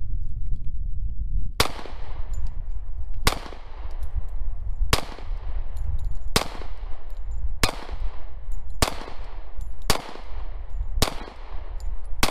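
Pistol fired in slow, steady succession: eight sharp shots about a second to a second and a half apart, the gaps shortening, with a ninth right at the end. Each crack is followed by a short ringing echo, over a steady low rumble.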